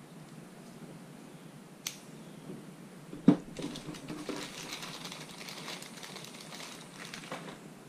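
Crinkling of a small plastic bag holding orange Fox volume spacers as hands handle it, a crackly run of small clicks that dies away near the end. A sharp knock, the loudest sound, comes just after three seconds in, with a lighter click about a second before it.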